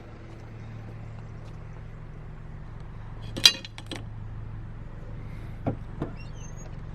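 Steady low hum of an idling vehicle engine, with one sharp clink about halfway through and two lighter knocks near the end as junk is handled.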